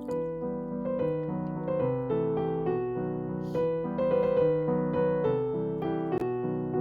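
Background piano music: a melody of short notes over lower sustained chords.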